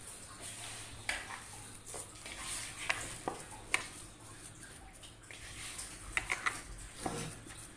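A hand squeezing and kneading a stiff grated-potato and flour dough in a plastic bowl, with scattered light knocks and clicks against the bowl.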